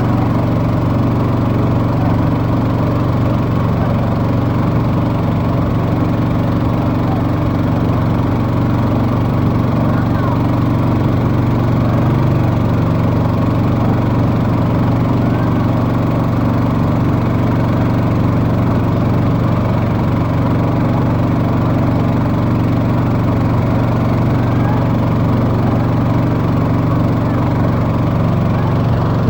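A small engine running steadily at an even speed, a loud, unchanging drone.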